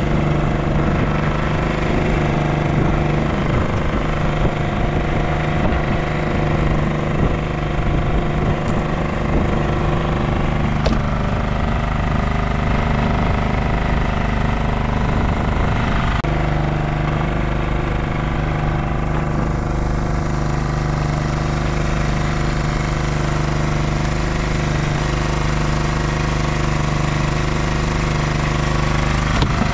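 A fishing boat's engine running steadily with a low, even knocking beat; its tone changes slightly about halfway through.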